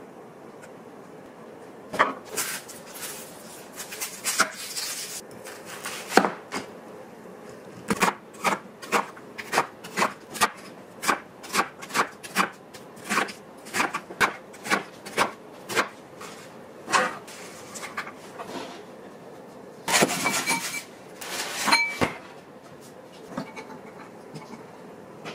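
A chef's knife chopping an onion on a wooden cutting board, sharp even chops about two a second for some eight seconds. Before it, plastic-wrapped pork slices rustle and tap in a stainless-steel tray. Near the end there are a couple of seconds of water and clinking glass as frozen shrimp go into a glass bowl of water to thaw.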